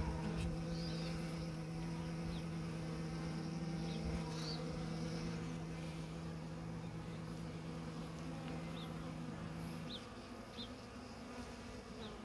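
Honeybees buzzing around small mating-box hives: a steady low hum that cuts off about ten seconds in, with fainter buzzing carrying on.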